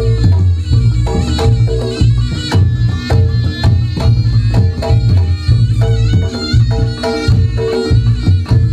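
Reog Ponorogo gamelan music: kendang drums and gong-type instruments beating a fast, steady rhythm under a sustained reedy melody from the slompret shawm.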